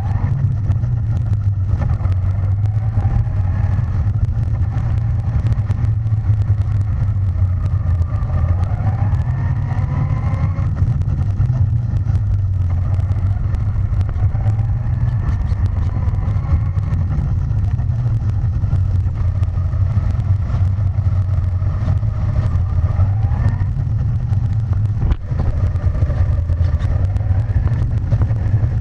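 Traxxas Slash VXL RC truck driving over a gravel driveway, heard from a camera strapped to the truck. A loud steady rumble of tyres and chassis vibration lies under a faint whine from the brushless motor and gears that rises and falls with speed.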